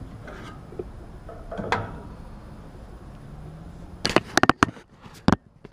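A quick run of sharp clicks and knocks about four seconds in, over a low steady hum.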